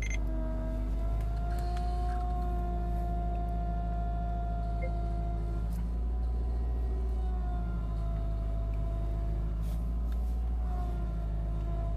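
Subaru Impreza WRX STI (GRB) flat-four engine idling cold, with a steady whine from the power steering pump that wavers and dips in pitch a few times. This cold-start whine is a common fault on this car, a sign that the power steering pump itself is failing and needs replacing.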